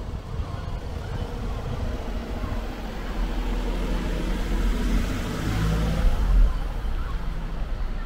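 A car driving past on a street, its noise swelling to a peak about five to six seconds in and then fading.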